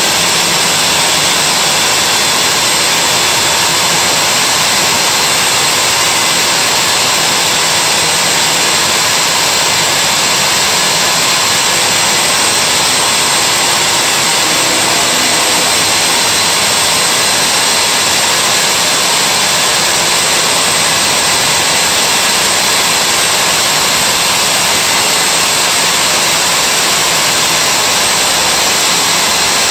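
Wall-mounted Milwaukee core drill running steadily under load as it cores into the wall, a constant loud whir with no change in pitch.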